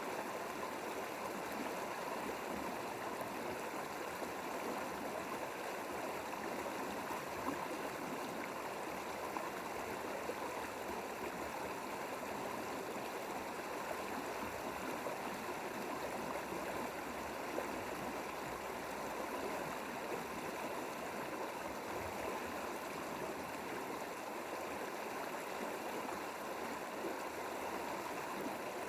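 Mountain valley stream flowing, a steady, unchanging rush of water.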